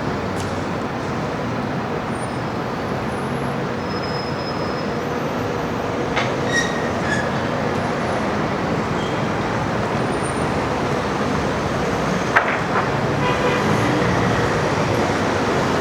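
Busy city-street ambience: a steady wash of traffic noise from passing road vehicles, with brief sharp knocks about six seconds in and again about twelve seconds in.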